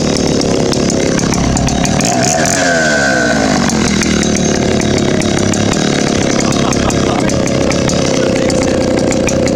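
Stihl 070 AV two-stroke chainsaw running loudly and steadily, with a brief falling sweep in pitch about two to four seconds in.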